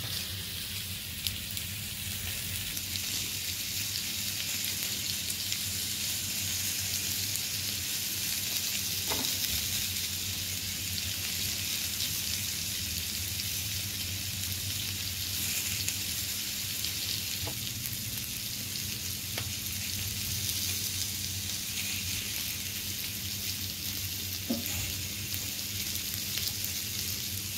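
Chicken breast sizzling steadily on a grill, with a few faint clinks of a wire whisk against a glass bowl.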